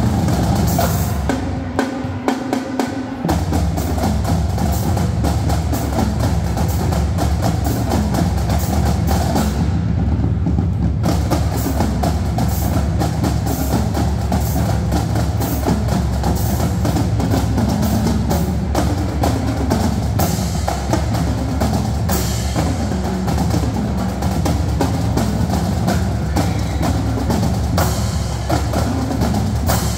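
School drumline playing: marching snare drums, tenor drums, bass drums and crash cymbals in a fast, dense stream of strokes.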